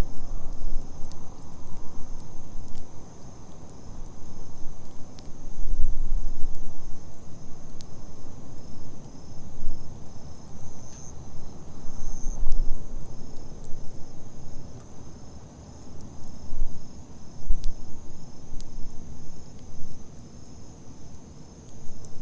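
Wood campfire burning, with scattered sharp crackles and pops over a low rumble that swells and fades, while insects chirp steadily behind it in a high, pulsing trill.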